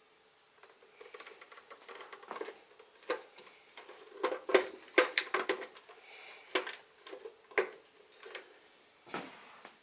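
Irregular run of sharp clicks and knocks from a table fan being handled, over a faint steady hum; the clicks are thickest about halfway through.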